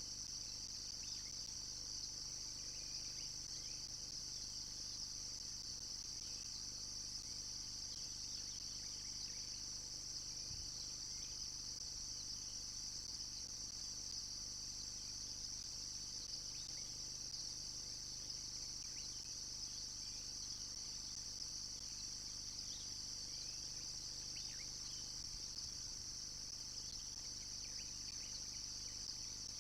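Steady high-pitched insect chorus, with a few faint short bird chirps scattered through it.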